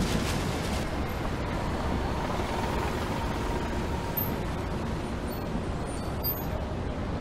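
Steady outdoor street ambience: a low, even rumble of distant road traffic.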